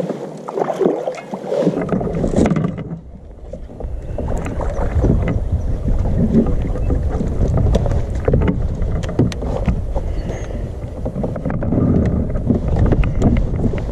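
Fishing kayak on the water: water splashing and lapping at the hull, with scattered light knocks. A heavy low wind rumble on the microphone sets in about two seconds in.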